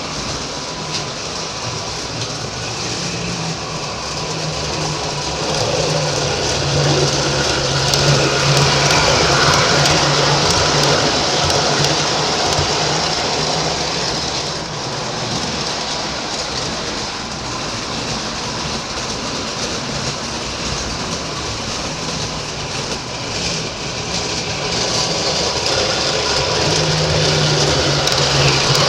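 Lionel O-gauge model subway train running on three-rail track: a steady electric-motor hum under the rumble and clatter of the wheels, growing louder twice as it comes closer, about six seconds in and again near the end.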